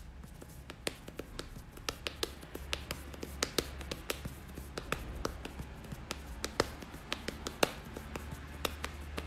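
Sharp hand taps on a hard surface, beating out a rhythm at about two to three taps a second, over a low steady hum.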